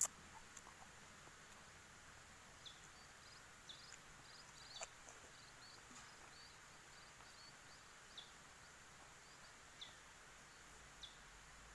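Near silence with faint small-bird chirps now and then: a quick run of short high chirps around the middle, then single chirps spaced a second or so apart. A sharp click right at the start.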